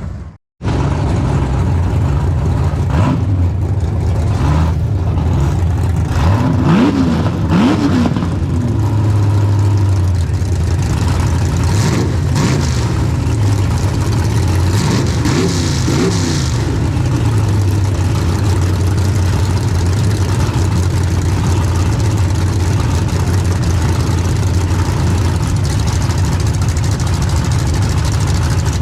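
A drag race car's engine idling with a steady low rumble, revved up a few times: once about seven seconds in and again around fifteen seconds in. The sound drops out briefly at the very start.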